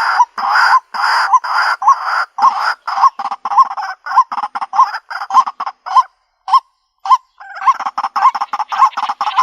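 White-breasted waterhen giving its harsh, repeated 'ruak-ruak' call, about two calls a second, each ending in a short upward hook. The calling breaks off briefly about six seconds in, then resumes.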